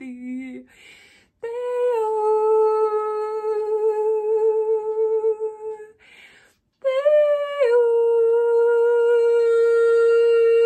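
A woman's voice toning: long held sung vowels on one steady pitch, with a quick breath between them. The second tone starts a little higher, drops about a second in, and is then held evenly.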